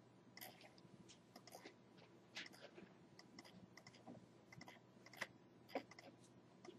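Near silence with faint, scattered clicks of a computer mouse, two of them a little louder about five seconds in.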